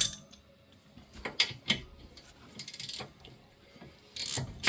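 Ratchet wrench clicking on an 18 mm brake caliper bolt: a few single clicks, then a quick run of clicks a little before three seconds in.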